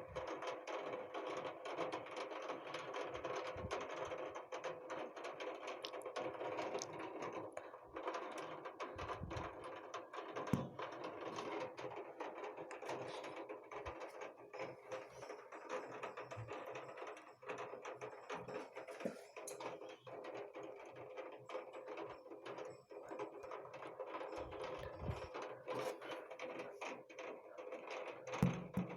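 Heavy rain pouring down, with a dense, irregular clatter of drops striking a hard surface.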